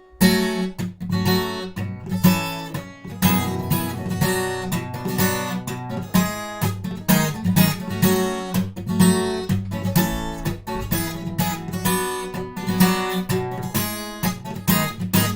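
Guitar chords strummed in a steady rhythm with the "stuk" technique: sharp percussive knocks of muted strings between the ringing chords.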